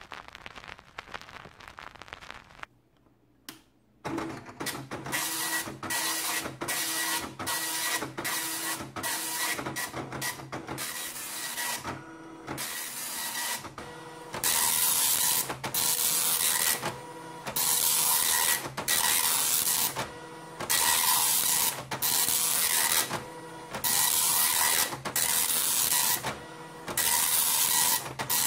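Panasonic KX-P1180 9-pin dot matrix printer running its built-in demo: the print head buzzes across the paper line after line, with short pauses between passes. The passes are short and choppy at first, then from about halfway become louder and longer, about a second and a half each. Before the printing starts there are a couple of seconds of crackling noise, then a brief hush.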